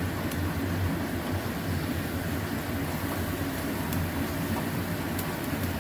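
Sauce boiling in a small saucepan over a lit gas burner, a steady low rumble, with a few faint clicks from the spatula stirring it.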